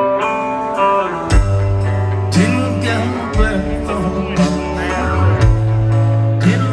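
Rock band playing live, recorded from within the crowd: electric guitar notes, then bass and drum kit come in heavily about a second and a half in.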